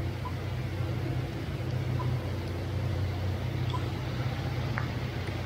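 Wet city street ambience in rain: a steady low hum of traffic and engines under an even rain hiss, with a faint short beep repeating about every two seconds.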